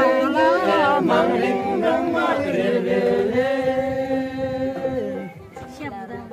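A group of voices singing together without instruments in a chant-like song, sliding between notes and then holding long steady ones. The singing drops away about five seconds in.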